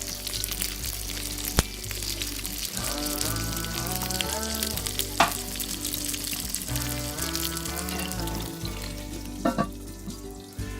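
Food searing skin-side down in a pan over a charcoal fire, sizzling steadily with a few sharp pops. Background music with held notes plays along.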